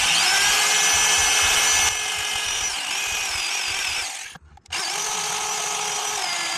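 A power tool grinding into the metal of a motorcycle exhaust during a catalytic converter delete. It runs continuously with a high whine that shifts in pitch, stops briefly about four seconds in, then starts up again.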